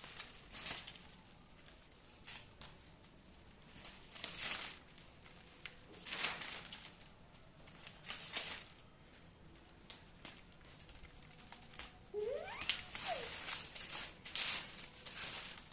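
A dog playing with an object, making intermittent rustling and crinkling scuffles at irregular intervals. About twelve seconds in there is one brief pitched squeal that rises and then falls.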